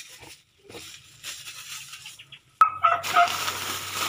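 Plastic shopping bag crinkling and rustling as groceries are handled, starting suddenly with a click about two and a half seconds in and louder than the faint rustle before it.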